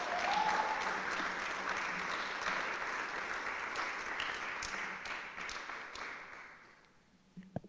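Audience applauding, the clapping holding steady and then dying away about six seconds in.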